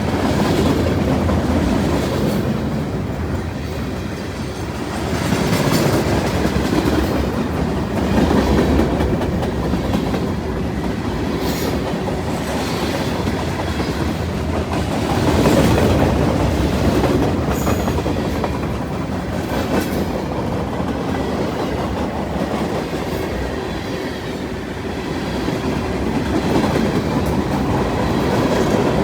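Freight cars of a passing train rolling by: a steady rumble of steel wheels on the rails with clicking over the rail joints, swelling and easing every few seconds.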